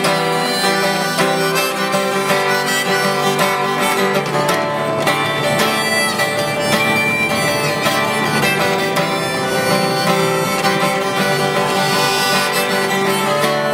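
Harmonica played in a neck rack together with an acoustic guitar: one busker's continuous tune, the harmonica's held notes riding over the guitar.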